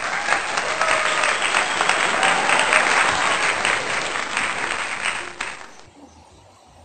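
Applause, many hands clapping, starting abruptly and stopping about five and a half seconds in; after it only a faint low rumble remains.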